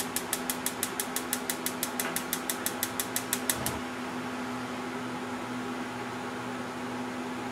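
Gas range spark igniter clicking rapidly and evenly, about seven clicks a second, as a burner is lit. The clicking stops about four seconds in, when the burner catches. A steady low hum sounds underneath.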